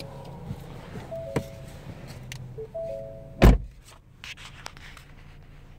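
2017 Ford Fusion's in-cabin warning chime sounding twice, then a heavy thump of a car door shutting about three and a half seconds in, after which the chime stops. A low steady hum runs underneath.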